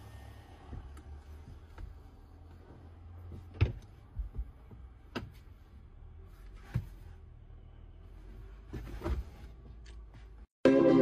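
Low steady rumble inside a car cabin, with a few soft knocks and clicks as someone moves about in the seat. Music starts abruptly near the end.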